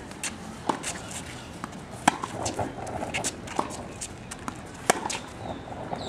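Tennis rally on an outdoor hard court: sharp pops of racket strikes and ball bounces, a hard strike about every second and a half, with lighter taps between.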